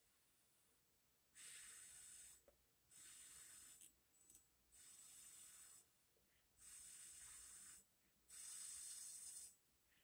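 Soft breathing close to the microphone, about five breaths in and out, each a little over a second long.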